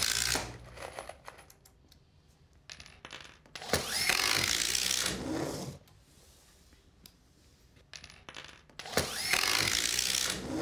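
Cordless drill driving self-drilling, self-tapping screws through plywood into a steel cabinet: two runs of about two seconds each, with small metallic clicks between them.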